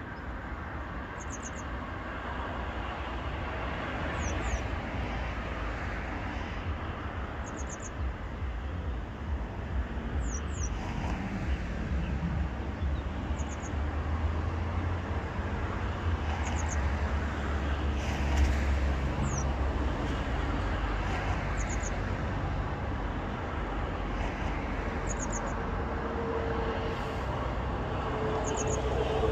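Steady low traffic rumble with a small bird giving short, very high chirps in twos and threes every few seconds. A steady hum comes in near the end.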